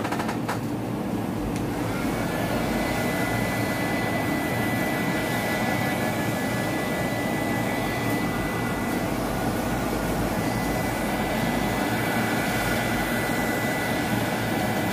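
Handheld craft heat gun blowing steadily, with a thin motor whine that sets in about two seconds in. It is drying alcohol on freshly painted wood.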